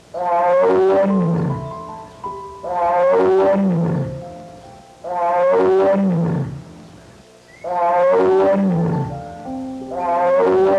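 A big cat roaring: five repeated calls about two and a half seconds apart, each lasting roughly a second and a half and falling in pitch. Background music with held notes plays between them.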